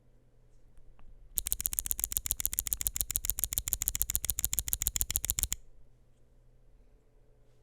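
Mechanical keyboard with lubed linear switches (CIDOO Matte) on a polycarbonate plate being typed on fast: a quick, even run of key clicks, about ten a second, starting about a second and a half in and stopping after about four seconds.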